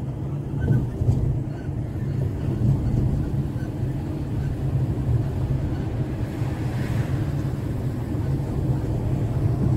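A car's engine and tyre noise heard from inside the cabin while driving: a steady low rumble.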